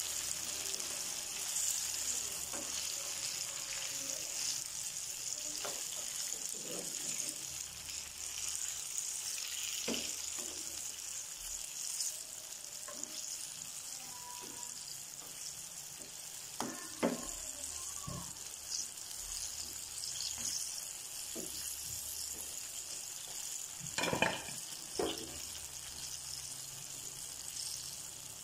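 Breadcrumb-coated banana pieces deep-frying in hot oil, a steady sizzle, their golden first side just turned up. A metal slotted spatula knocks against the pan a few times, loudest twice near the end.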